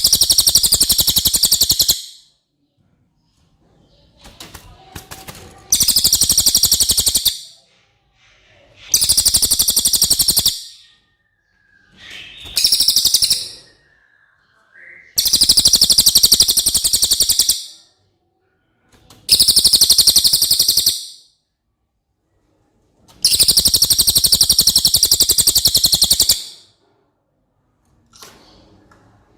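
Cililin song: a very high, rapid, buzzy trill delivered in seven bursts of one to three seconds each, with short silent gaps between them.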